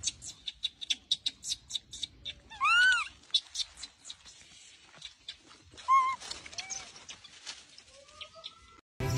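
Macaque monkey calls: one loud arching coo about three seconds in, then shorter high squeaks around six seconds and a faint rising note near the end. Through the first few seconds there is a quick patter of small clicks.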